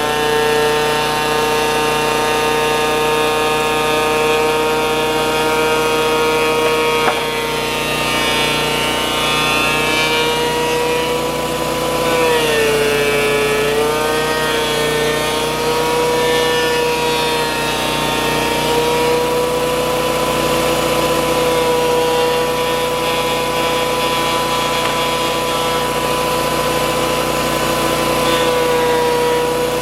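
DeWalt 13-inch thickness planer running with a loud, steady high whine as pine boards are planed. Its pitch sags briefly about 12 to 14 seconds in and again slightly near the end. There is a single click about 7 seconds in.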